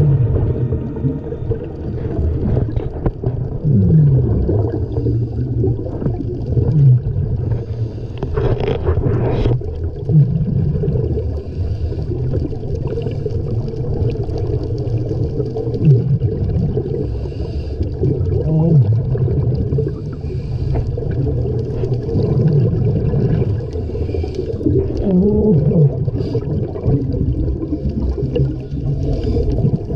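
Muffled underwater sound, as picked up by a camera in a dive housing: a steady low rumble of water with short, low sliding tones every few seconds.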